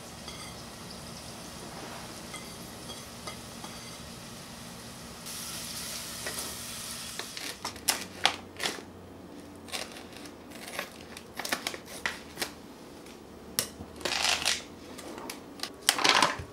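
A quiet steady sizzle from a stainless steel pot of caramelized onions as minced garlic is scraped in. From about seven seconds in, scissors snip through a plastic brown-sugar pouch, and the pouch crinkles and crackles as it is pulled open.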